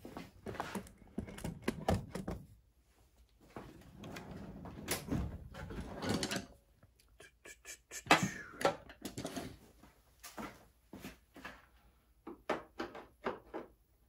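Handling noise in a workshop: scattered clicks, knocks and rustles as the camera is carried and set down and tools are handled, with a quicker run of light clicks near the end.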